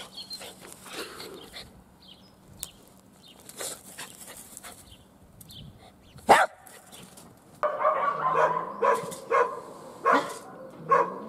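Small Kokoni dog barking: one sharp bark about six seconds in, then a run of short, quick barks, about two a second, from about seven and a half seconds on.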